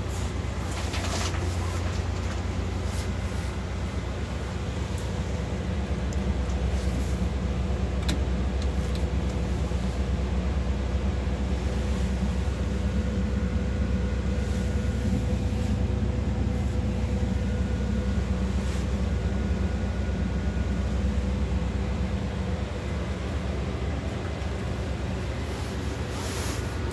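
Iveco Urbanway 18 articulated bus's natural-gas engine running steadily, a low hum heard from inside the driver's cab. It grows slightly louder for a stretch in the middle.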